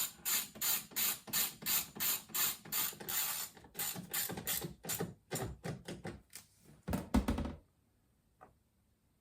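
A ratchet wrench being worked back and forth to drive in a large screw, its pawl clicking in quick even strokes about three a second, then slower and uneven as the screw tightens. A heavier knock comes about seven seconds in.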